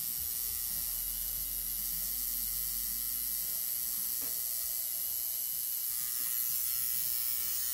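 Electric tattoo machine buzzing steadily at an even pitch, with a bright, hissy high end.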